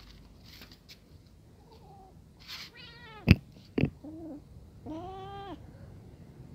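A cat meowing three times, the last call the longest. Two sharp knocks fall between the first and second meows and are the loudest sounds.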